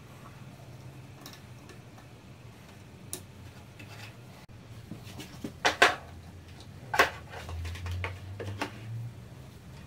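A few sharp clicks and light knocks from handling the laser engraver's frame and wiring, the loudest near six and seven seconds in, over a faint low hum.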